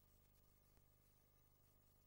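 Near silence: only a faint steady low hum and hiss from the recording itself.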